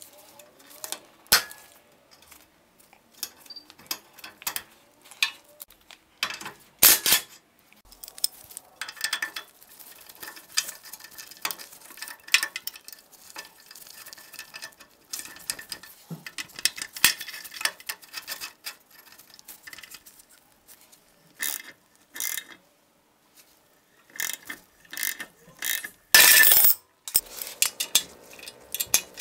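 Hand tools working on a Toyota Tacoma's front suspension: a run of metal clinks and clanks as pliers, wrenches and a pitman arm puller work the tie rod castle nut and tie rod end. Near the end a socket ratchet clicks as the bolts holding the lower ball joint to the spindle are loosened, with a louder clattering burst about a second long.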